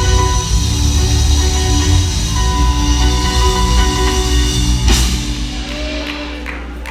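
Live gospel band playing an instrumental passage: held chords over bass and drums. A sharp hit comes about five seconds in, and after it the music thins out and gets quieter.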